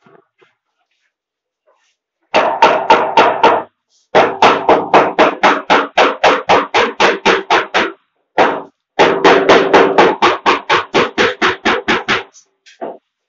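Rapid, evenly spaced knocking strikes, about six a second, in several runs of a few seconds with short breaks between them.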